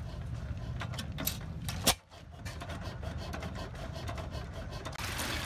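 Antique single-cylinder stationary gas engine with large flywheels running steadily, with a few sharp knocks in the first two seconds. The sound drops out briefly about two seconds in.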